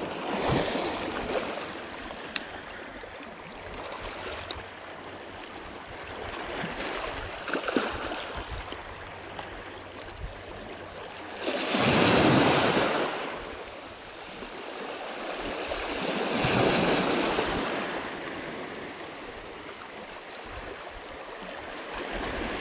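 Small sea waves washing in over a pebble and rock shore, swelling and ebbing, with the biggest surges about twelve and seventeen seconds in.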